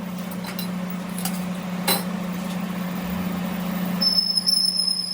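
Workshop machine running with a steady hum, a single sharp metallic click about two seconds in, and a high steady whine joining about four seconds in.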